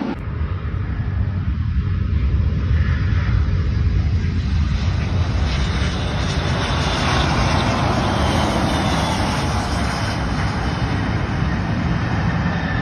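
Embraer KC-390 transport's twin turbofan engines, a steady jet rumble with strong deep bass, as the aircraft comes in low over the runway and lands.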